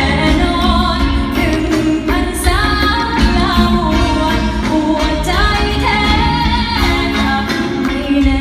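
A woman singing a Thai pop song live into a microphone, with musical accompaniment over the arena sound system, heard from the audience seats.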